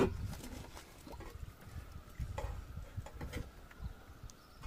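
A metal ladle scooping in a large cooking pot, with a few faint clinks, over a low rumble of wind on the microphone.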